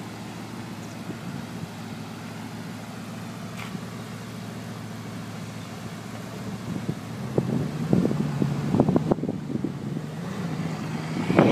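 Bugatti Veyron Vitesse's quad-turbocharged W16 engine idling steadily, then growing louder and uneven about seven seconds in as the car pulls away.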